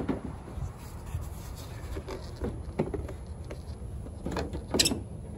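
Plastic knocks and scraping from a 2006 Chevrolet Impala's headlight housing and its surrounding trim as a hand works behind it to seat the assembly back in place. A few scattered knocks sound over a low rumble of handling noise, the loudest about a second before the end.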